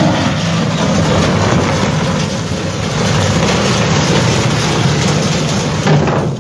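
A large ship's steel hull and the anchor in its hawse pocket grinding and scraping along a concrete quay edge: a loud, continuous, rough scraping rumble from the hull striking the quay.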